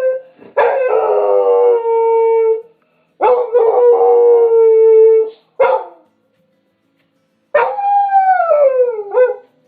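Dog howling: two long howls held on a steady pitch, a brief short cry, then after a pause of about a second and a half a howl that slides down in pitch.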